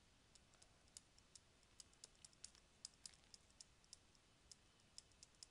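Near silence with faint, irregular clicks of a stylus tapping on a tablet surface while writing.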